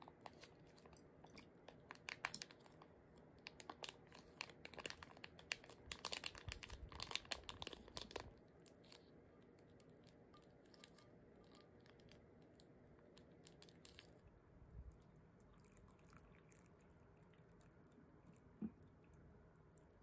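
Foil food pouch crinkling and crackling as it is handled and emptied into a glass bowl, dense for about eight seconds. After that there are only faint scattered rustles and ticks.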